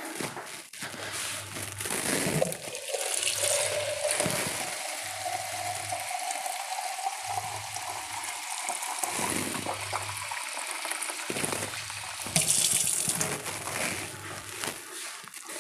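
Water running into a plastic cup, its pitch rising slowly as the cup fills. A brighter rush of running water comes near the end.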